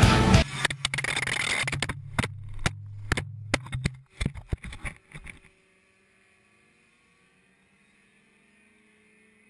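Camera knocked off a racing kart: the kart's two-stroke engine drones under a rapid run of sharp knocks and scrapes as the camera tumbles across the ground. The knocks thin out and stop about five and a half seconds in, leaving near silence as the camera lies in the dirt.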